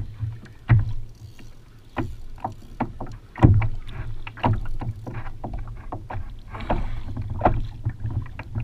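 Water slapping and knocking against a kayak's hull in irregular knocks, one or two a second, over a steady low rumble of the sea. The loudest knock comes about three and a half seconds in.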